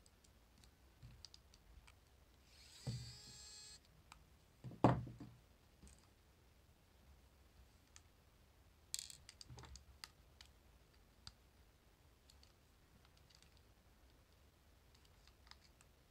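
Faint clicks and taps of small tools being handled on a wooden table, with a pitched whine lasting about a second from a mini electric screwdriver's motor about three seconds in. A single knock about five seconds in is the loudest sound.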